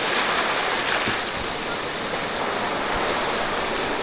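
Ocean surf washing steadily on a rocky cobble beach, a continuous rushing hiss.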